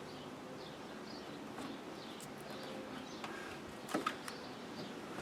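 Faint birds chirping in the background, with a few light clicks and taps, the clearest about four seconds in.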